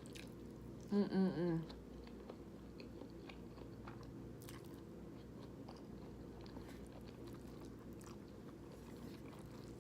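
A person chewing a mouthful of creamy pasta, with faint wet mouth clicks, and a short voiced "mmm" about a second in.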